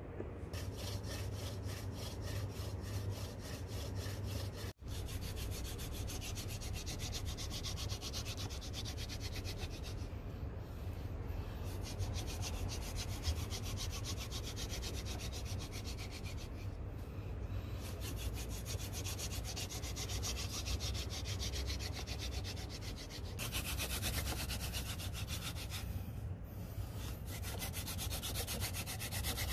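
Hand-drill fire-making: a wooden spindle spun back and forth between the palms against a wooden hearth board, a fast, even rubbing of wood on wood. It breaks off for an instant about five seconds in, and the strokes turn brighter and harsher over the last six seconds.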